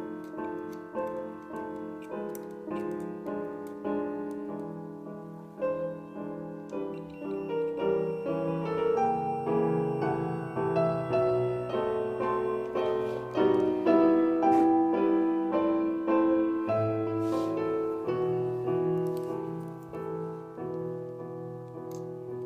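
Background classical piano music, a steady run of notes played throughout.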